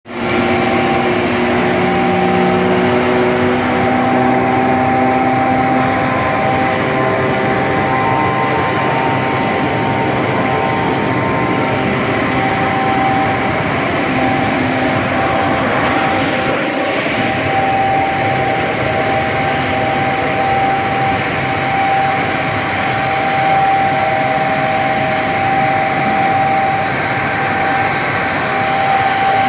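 Plastic pelletizing line for PP and PE running: a steady, loud machinery noise from the extruder drive and strand pelletizer, with a constant whine and a few other tones that come and go in the first few seconds.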